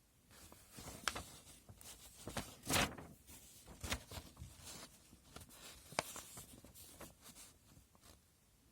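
Plastic model kit contents and packaging being handled: a series of light clicks, taps and rustles, with a louder rustle between about two and a half and three seconds in and a sharp click at about six seconds.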